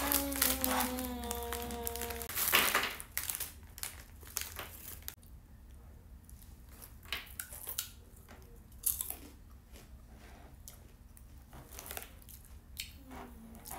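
Plastic snack bag of blue Takis crinkling as it is handled and opened, with one loud ripping, crackling burst about two and a half seconds in. It is followed by many small scattered crinkles and clicks as the rolled chips are handled.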